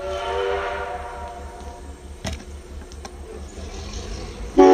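A departing locomotive sounds its multi-note whistle twice: a blast at the start that fades away over about two seconds, then a much louder, sudden blast near the end.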